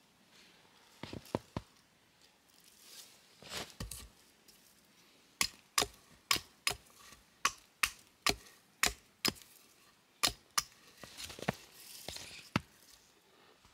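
Small hatchet chopping into a pine log: a run of about a dozen sharp strikes, roughly two a second. A few lighter knocks and some rustling come before it.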